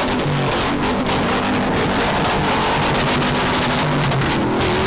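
Car engine running at high, fairly steady revs, with dense noise over it.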